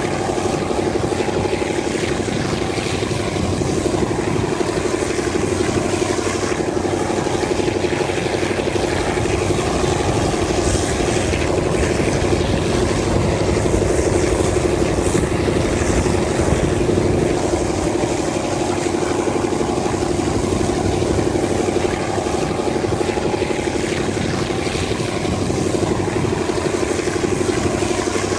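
TCDD DE 24000 diesel-electric locomotive's engine running steadily as it hauls the train, a constant droning note heard from a coach window along the moving train.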